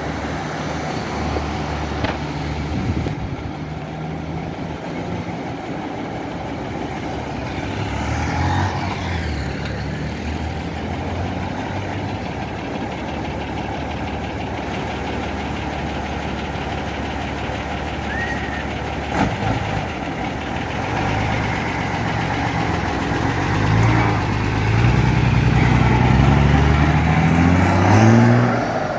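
Old Ford F-350 truck engine idling as it warms up. Near the end it revs up several times in rising sweeps as the truck pulls away, louder than the idle.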